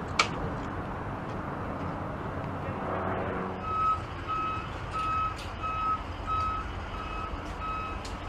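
A vehicle's reversing alarm sounding a string of short, evenly spaced beeps at one pitch, about two a second, beginning a few seconds in, over a low steady engine rumble. Two sharp clicks are heard at the very start.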